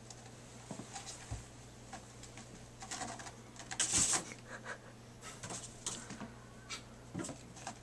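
A cat's claws catching and scratching on a carpeted cat tree and its rope-wrapped posts as it climbs: a run of small scratches and clicks, with a louder scratch about four seconds in.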